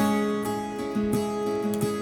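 Background music: plucked acoustic guitar notes ringing out.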